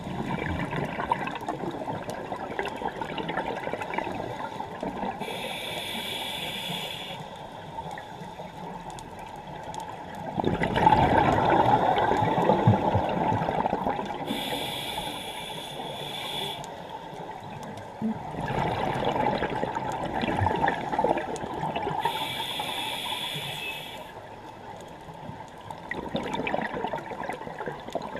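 Scuba diver breathing through a regulator underwater: three hissing inhales, each followed by several seconds of bubbling exhaled air. The cycle repeats about every eight seconds.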